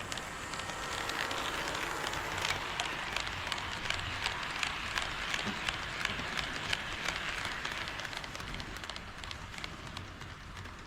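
HO scale model train running past on its track, its wheels rattling and clicking regularly over the rail joints. It grows louder and then fades as it passes.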